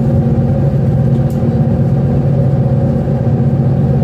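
High-speed passenger ferry's engines running steadily under way, a constant low drone heard from inside the passenger cabin.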